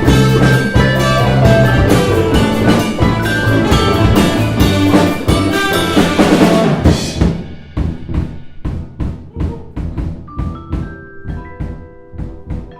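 Live percussion ensemble with drum kit, steel pan and vibraphone playing jazz-fusion. The full band plays densely with a heavy low end for about the first half. About halfway it drops out to sparse, steady drum hits, and held vibraphone notes come in near the end.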